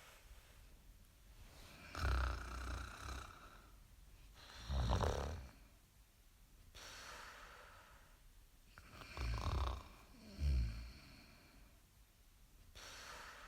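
Snoring: four loud snores with a low rumble, around two seconds in, about five seconds in, and two close together near nine and ten seconds in, with softer breaths between them.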